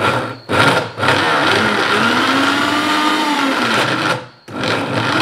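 Electric mixer grinder (mixie) grinding peanuts, dates and honey into a thick peanut butter paste in its small steel jar, worked in pulses: two short bursts, then a run of about three seconds with its pitch rising and falling, a brief stop, and running again near the end.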